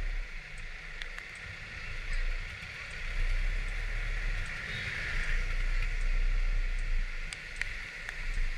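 Riding a Kymco Like 125 scooter through rain on a wet road: a steady low rumble of wind and engine under a hiss of rain and tyre spray, with scattered small ticks.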